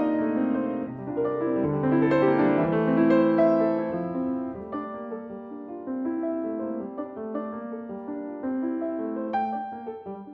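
Solo piano playing a toccata: busy, rapidly moving figures with many notes ringing together, louder for the first few seconds and softening after about five seconds.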